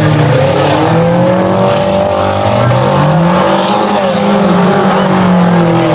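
Several four-cylinder demolition derby cars' engines revving, their pitches rising and falling against one another as the cars accelerate and reverse.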